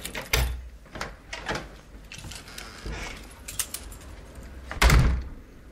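Radio-drama sound effects of someone arriving at a door: a run of knocks and clatter, then a door shut with a heavy thud about five seconds in.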